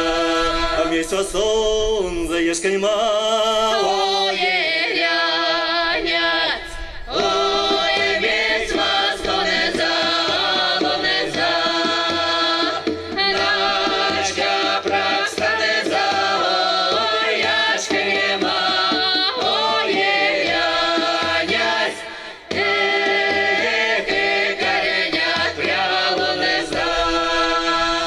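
A Mordovian folk song sung in several voices, men's and women's together, over hand-drum beats, with two short breaks between phrases.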